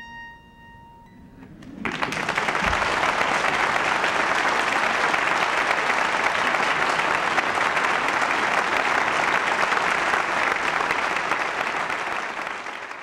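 A last harpsichord chord fades out, then about two seconds in an audience starts applauding, a steady clapping that tails off near the end.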